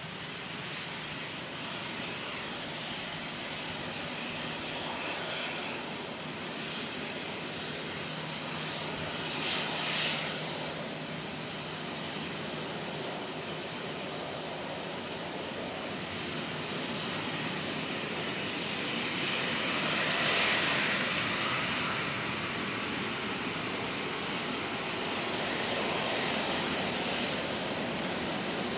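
Boeing 737-400 freighter's CFM56 jet engines running at taxi power: a steady rushing whine that swells briefly about ten seconds in and again, louder, around twenty seconds in, as the aircraft turns.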